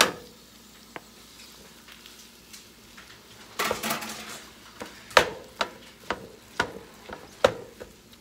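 Raw ground beef landing in a hot nonstick frying pan of browned onions, with a sharp knock as it is tipped in and a faint sizzle throughout. A wooden spoon scrapes through the meat, then knocks on the pan about twice a second as it breaks up the beef.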